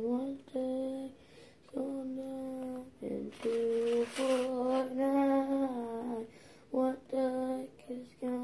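A child humming or singing a wordless tune in long held notes, some sliding up or down in pitch, with short breaks between phrases.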